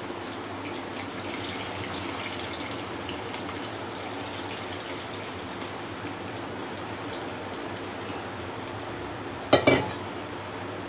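Tamarind water poured and squeezed by hand from a steel bowl into a clay pot of simmering brinjal curry: a steady splash and trickle of liquid. Near the end, a few sharp knocks.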